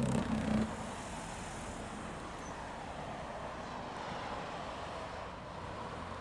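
Jaguar F-Type coupé crossing a cattle grid, its tyres drumming briefly on the steel bars at the start, then the car's engine and tyres running steadily as it drives off.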